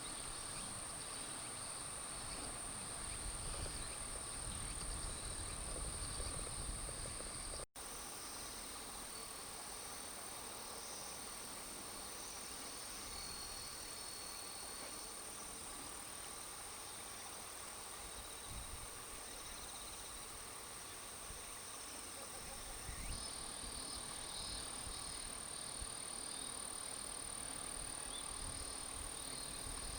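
Insects singing in one steady, continuous high trill, with a low rumble in the first several seconds; the sound cuts out for an instant about eight seconds in.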